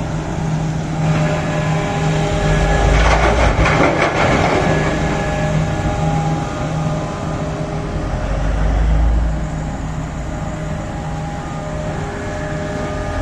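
Large mining excavator's diesel engine running under load, with a rough burst of scraping and clatter about three to four seconds in as the bucket grinds against hard, poorly blasted rock.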